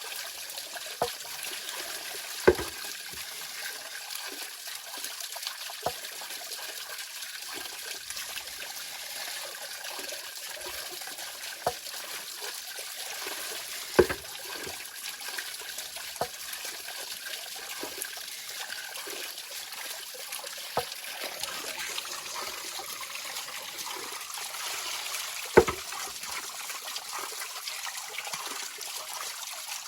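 A rocky river flowing with a steady rushing trickle. Short, sharp sounds come every few seconds, three of them louder than the rest.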